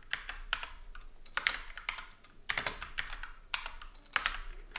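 Typing on a computer keyboard: irregular clusters of keystroke clicks with short pauses between them.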